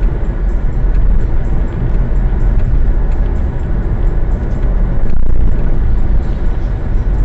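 Steady road and engine noise of a car cruising at highway speed, heard from inside the cabin, swelling briefly about five seconds in as it overtakes a lorry.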